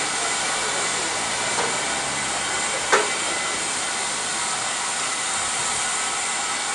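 Steady hiss of steam escaping from the standing GWR pannier tank locomotive No. 1501, with a short sharp click about three seconds in.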